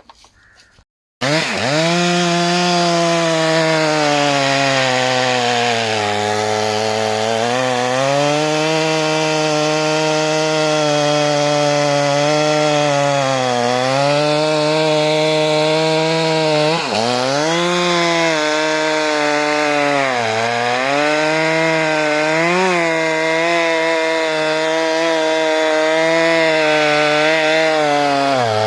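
Stihl MS 462 two-stroke chainsaw with a 90 cm bar cutting through a log at full throttle. Its engine pitch sags again and again as the chain bites under load, then picks back up. It starts abruptly about a second in.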